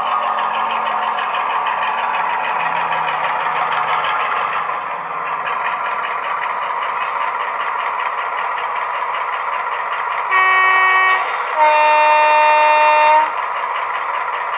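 DCC sound decoder in a 00 gauge Heljan Class 35 Hymek model locomotive, playing its diesel engine running sound through the small speaker fitted in the loco's tanks. About ten seconds in the two-tone horn sounds: a short higher note, then a longer, louder lower note.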